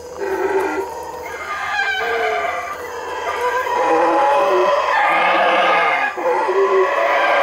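Howler monkeys howling: a loud, drawn-out chorus of rising and falling calls. It starts about a quarter-second in, swells to its loudest midway and carries on after a brief dip about six seconds in.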